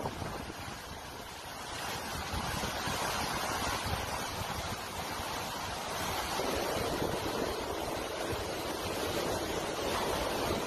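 Hurricane-force wind and driving rain, a steady rushing noise, with the wind buffeting the microphone in a low rumble. A stronger gust builds about six seconds in.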